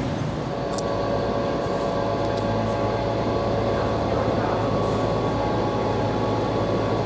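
Train at a railway station, a steady running hum with several held steady tones.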